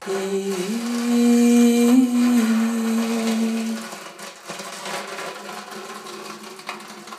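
A woman singing one long, low note into a handheld microphone; the pitch dips briefly, then holds steady. About four seconds in the note stops, leaving fainter, noisier vocal sound.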